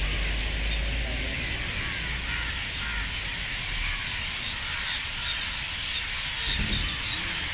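Outdoor night ambience: a steady high hiss with faint chirps running through it, and a low hum that fades out over the first few seconds.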